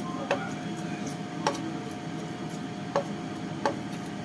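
Four sharp knocks of kitchen utensils on hard surfaces, irregularly spaced about a second apart, over a low steady background hum.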